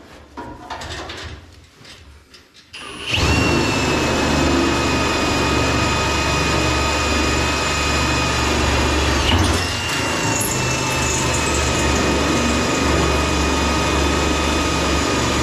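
Electric power drill running at a steady pitch, starting about three seconds in with a brief hitch near the middle; a few light knocks come before it.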